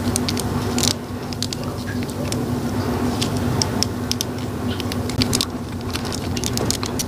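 Small plastic clicks and taps of a plastic action figure being handled while a part that popped off is worked back into its joint, over a steady low hum.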